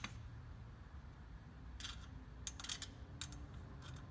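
Faint, scattered light clicks of small metal hardware handled by hand: a Nylox lock nut being finger-tightened onto a quarter-inch bolt through the metal tower frame. The clicks start about two seconds in, a few of them close together.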